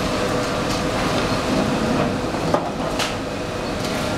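Sawdust briquette press running: a steady mechanical din with a faint hum, and two sharp knocks about two and a half and three seconds in.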